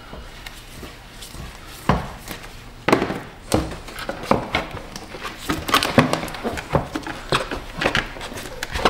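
Hard plastic engine cover and air-intake duct being handled and pressed onto their mounts: scattered plastic knocks and clicks, the sharpest about two, three and three and a half seconds in. The cover is being seated on mounts that have been greased with silicone grease.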